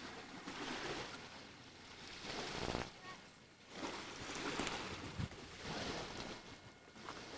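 Lake water lapping in small waves: a rushing noise that swells and fades every second or two.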